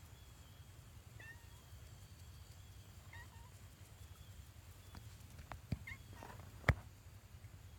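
A domestic cat meowing faintly in short calls, about a second in, about three seconds in and again near six seconds. A few sharp snaps come in the second half, the loudest shortly before the end.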